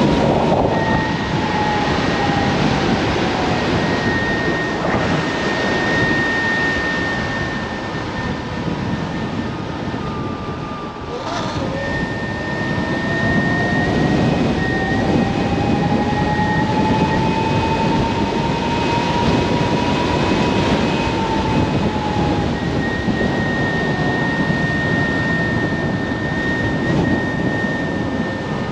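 Kaabo Wolf King GT's 72 V dual hub motors whining while riding, the whine's pitch following speed: it falls, dips sharply about a third of the way in, climbs slowly for several seconds, then falls again. A steady higher whine sits above it, and a loud rush of wind and tyre noise runs beneath.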